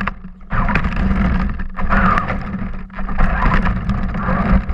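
Radio-controlled off-road truck driving through water, heard from a camera mounted on its body: a steady drive hum under splashing and water spattering against the body, with scattered knocks. The sound drops out briefly about half a second in.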